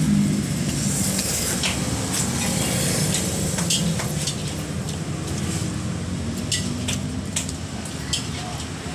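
A spoon and fork clicking now and then against a plate as someone eats noodles, over a steady low rumble that slowly fades.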